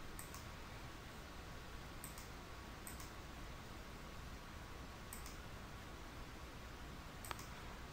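A few faint computer mouse clicks, about five spread out, over a low steady hiss.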